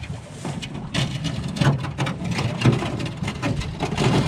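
John boat's hull scraping and knocking as it is dragged and shoved into a pickup truck bed, in a run of irregular scrapes and bumps over a low engine hum.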